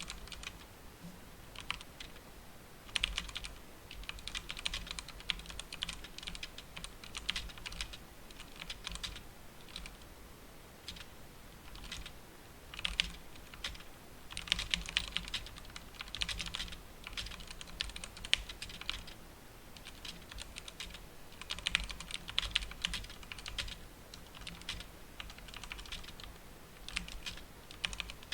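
Typing on a 1stPlayer DK5.0 Lite mechanical keyboard with linear red switches: rapid key clacks in bursts of one to a few seconds, separated by short pauses.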